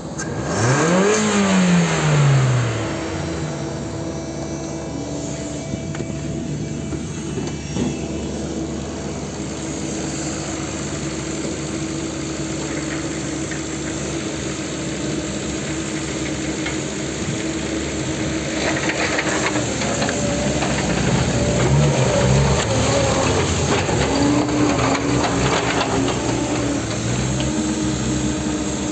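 Ford Focus II 1.6-litre petrol four-cylinder engine flaring up in revs near the start, its pitch rising and falling back over about two seconds, then idling steadily.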